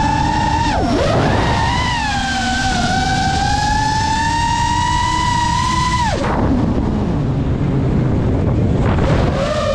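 FPV drone's brushless motors whining, the pitch rising and falling with the throttle. The pitch dips and recovers about a second in, holds high, then drops away about six seconds in, leaving a lower rushing noise, before it climbs again near the end.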